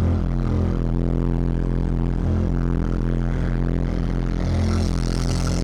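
Bass-heavy music pounding from a truck's 12-inch subwoofer on a 2,200-watt amp, heard in the cab, with deep bass notes pulsing on and off. A hiss comes in near the end.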